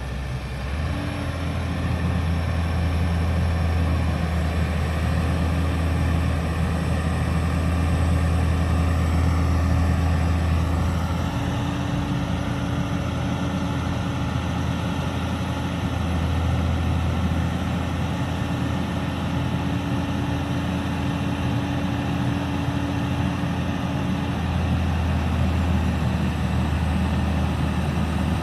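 Caterpillar M325D MH wheeled material handler's diesel engine running steadily as it works the hydraulic boom up and down, its note shifting about eleven seconds in and again near the end.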